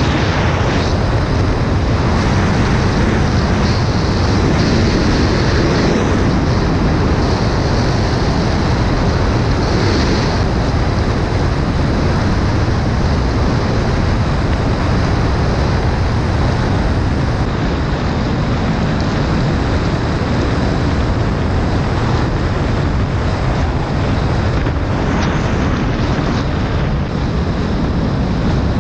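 Motorcycle running at steady road speed, its engine under a heavy rush of wind over the microphone.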